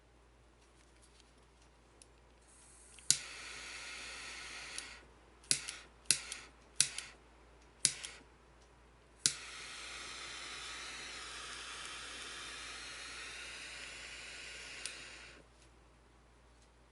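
Turbo (jet-flame) lighter made in the shape of a break-action double-barrelled shotgun: sharp ignition clicks, each followed by the steady hiss of the gas jet. One burn lasts about two seconds, then come four quick clicks with short hisses, and a final click lights a steady hiss that runs about six seconds before cutting off.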